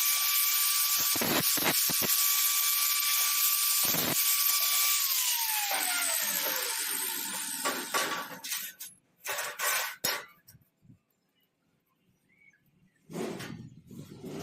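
Electric power tool running with a steady whine and hiss, then switched off about five seconds in, its pitch falling as it winds down. A few short knocks and clatters follow.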